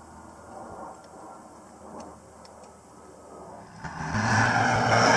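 Skid steer engine running quietly, then throttled up about four seconds in to a loud, steady run with a deep hum and a rushing air noise.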